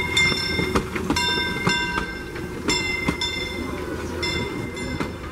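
Narrow-gauge steam locomotive and its passenger cars rolling slowly past. The engine's bell rings over and over, about six strikes spaced half a second to a second apart. Wheels click over the rail joints beneath a steady low rumble.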